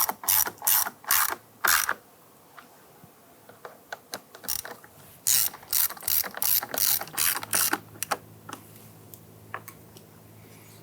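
Hand ratchet driving Phillips screws into a plastic interior door handle, its pawl clicking in quick strokes about three a second. There are two runs with a pause of about two seconds between them, as each screw is run down until it bottoms out.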